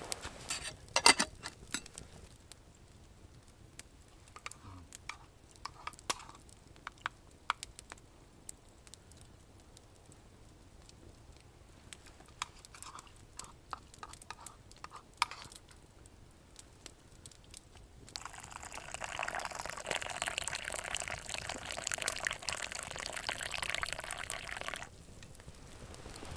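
A metal spoon clicking and scraping in a wooden kuksa cup during eating, in scattered small strokes. About eighteen seconds in, liquid is poured from a kettle into the cup in one steady pour lasting about seven seconds, then stops suddenly.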